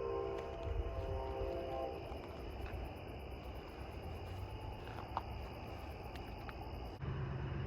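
Diesel locomotive horn sounding a steady multi-note chord that cuts off about two seconds in, followed by the low rumble of the passing train with night insects chirping faintly. Near the end a steady low hum starts abruptly.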